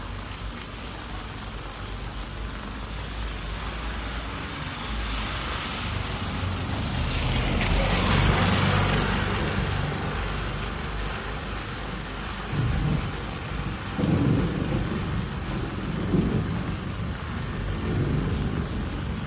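Steady hiss of rain with rolling thunder: a long swell that builds and fades about halfway through, then several shorter low rumbles near the end.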